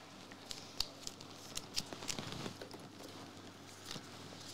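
Trading cards and a foil booster-pack wrapper being handled: a run of light clicks and crinkles, sharpest about a second in, then quieter.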